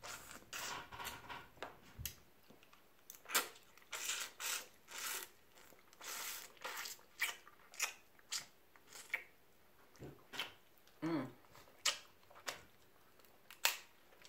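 Close-up eating sounds: wet chewing and lip smacking on crab meat, broken up by irregular small cracks and snaps as crab-leg shell is pulled apart. A brief hummed "mm" about eleven seconds in.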